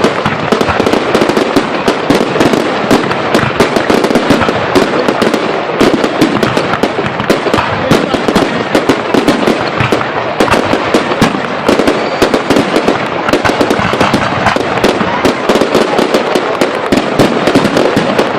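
Fireworks display: loud, dense crackling and banging, many cracks a second overlapping with no let-up.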